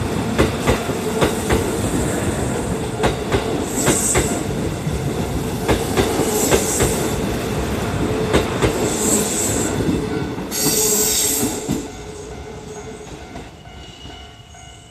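Kintetsu electric train running past a level crossing, its wheels clicking over rail joints in quick succession over a steady rumble. The sound drops away sharply about twelve seconds in as the train clears, then keeps fading.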